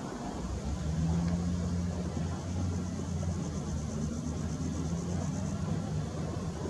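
Hitachi ZW310 wheel loader's diesel engine running under load as it drives its bucket into a sand pile: a steady low hum that grows a little louder about a second in.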